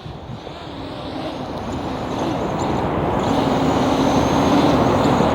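SwellPro Spry quadcopter drone's propellers buzzing, growing steadily louder as it comes in to land.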